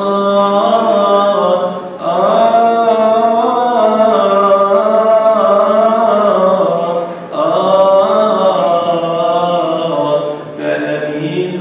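Male voice singing Coptic Orthodox liturgical chant through a microphone, in long drawn-out melismatic phrases with brief breaks for breath about two, seven and ten seconds in.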